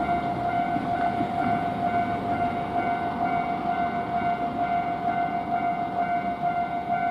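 Japanese level-crossing warning bell ringing, an even electronic ding that repeats about twice a second. Beneath it is the steady rumble of a train running past the crossing.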